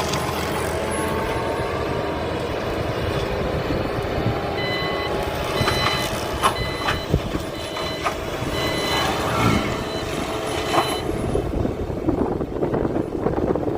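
Sunward skid steer with a forestry mulcher head running steadily. From about four and a half seconds in there is intermittent high-pitched beeping, with a few sharp knocks around the middle.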